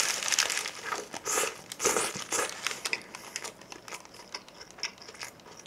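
Paper burger wrapper crinkling in the hands as a burger is bitten into and chewed. The soft crackles come thickest in the first three seconds and then thin out.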